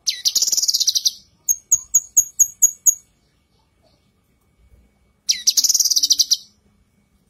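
Female cucak kinoi (leafbird) calling. A fast, buzzy trill of about a second comes first, then a run of about seven sharp, high chips, then a second trill like the first near the end.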